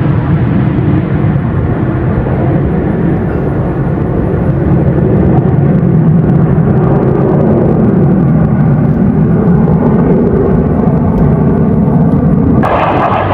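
Jet aircraft engine noise: a loud, steady rumble that swells about five seconds in. Near the end it switches abruptly to a brighter noise with more hiss.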